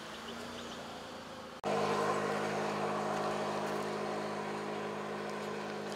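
A motor vehicle's engine idling with a steady, unchanging hum. It comes in suddenly and much louder a little over a second and a half in, replacing a softer outdoor background.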